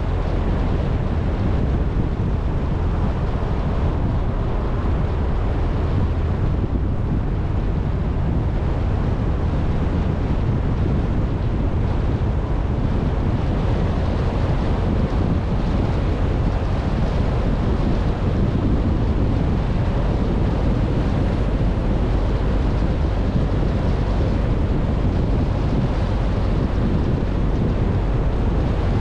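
Steady rushing wind and road noise of a moving car, with wind rumbling low and heavy on the microphone.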